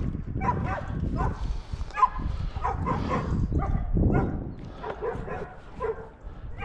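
Hunting dogs barking and yelping repeatedly in short calls.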